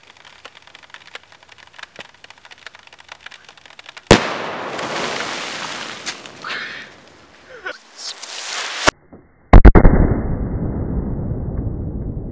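Dry ice bomb (a sealed 2-litre bottle of dry ice and water) bursting under a rotten log: a sudden sharp bang about four seconds in, followed by several seconds of rushing hiss that cuts off abruptly. Then a second, deeper and duller boom with a long rumble, the blast played again in slow motion.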